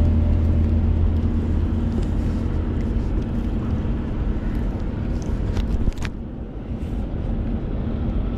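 Wind buffeting a small action-camera microphone on a boat makes a steady low rumble. A couple of sharp clicks come a little past the middle as the jig is handled.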